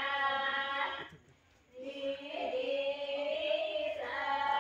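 Group of women singing a traditional Rathva wedding song unaccompanied, in long held lines. The singing breaks off for under a second about a second in, then starts again.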